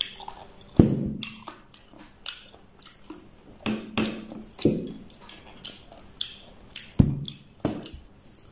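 Close-miked eating and table-handling sounds: about a dozen irregular clicks, taps and soft knocks, a few with a low thud.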